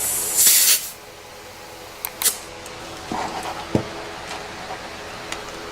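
A short, loud hiss about half a second in, then a few light clicks and a dull knock from hands working on the scooter, with its engine off.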